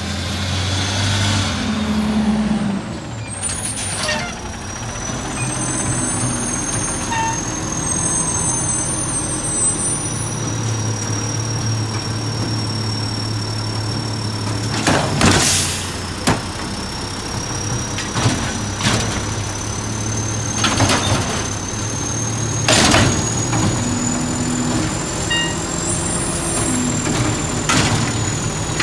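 McNeilus automated side-loader garbage truck with a natural-gas engine running with a steady low hum and a thin high whine as it pulls up and idles. It gives several short sharp air hisses, the loudest about halfway through, and its hydraulic arm swings out toward the recycling cart near the end.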